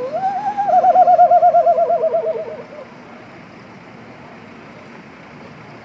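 Whistled bird call blown through cupped hands, imitating the bacurau, a nightjar. It is one rising hoot that breaks into a wavering trill sliding down in pitch and fades after about two and a half seconds.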